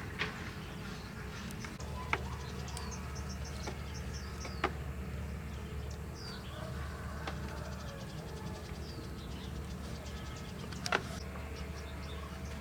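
Insects buzzing steadily, with scattered short bird chirps and a few sharp clicks over a low steady hum.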